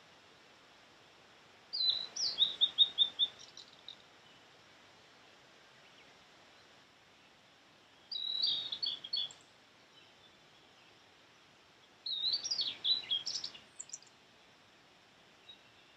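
Male blue-and-white flycatcher (sulingan laut) singing: three short high phrases a few seconds apart, each opening with a higher note and running into quick repeated notes.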